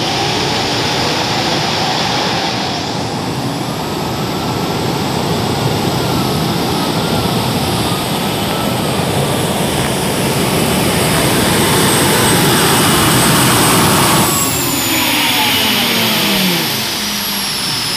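Super modified pulling tractor running at full power down the track, with a high whine that climbs about three seconds in. About fourteen seconds in, the engine note and the whine fall in pitch as the tractor comes off the power.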